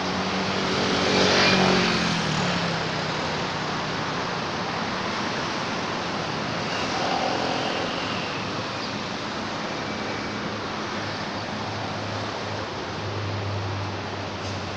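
Road traffic: a motor vehicle passes about a second and a half in, its engine pitch falling as it goes by, over a steady background hiss. A low engine hum comes in near the end.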